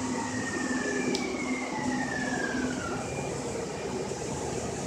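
Electric traction motor whine of a Siemens S200 light rail train slowing into a stop, the whine falling steadily in pitch over about three seconds, over a steady hum and rolling noise heard from inside the car.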